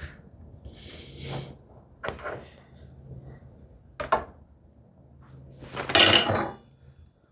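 Hand tools handled on a workbench: a few light knocks and a sharp click, then a louder clatter lasting under a second about six seconds in.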